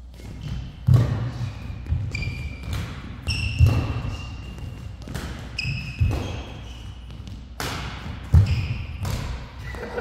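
Doubles badminton rally: a shuttlecock struck by rackets in sharp cracks about every second. Between and after the hits come short high squeaks of court shoes on the mat and thudding footsteps.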